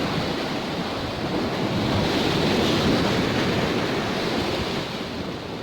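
Sea surf washing on the shore, with wind buffeting the microphone; it swells a little in the middle and eases off near the end.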